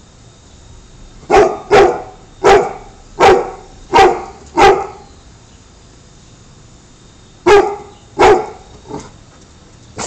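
American Pit Bull Terrier barking: six loud barks in quick succession, then after a pause two more and a softer one.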